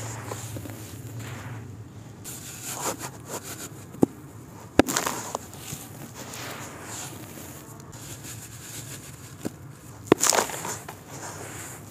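Hands crumbling and sifting dry powdery soil in a plastic basin: soft hissing pours and crunches. There are sharp snaps as packed clumps break, about four seconds in, again a second later, and loudest about ten seconds in.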